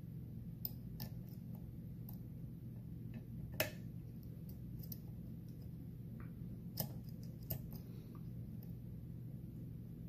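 Small, irregular metallic clicks and ticks from a dimple pick working the pins of a Mul-T-Lock Interactive+ dimple lock with serrated drivers, held under tension. A sharper click comes about three and a half seconds in, and two more come around seven seconds in.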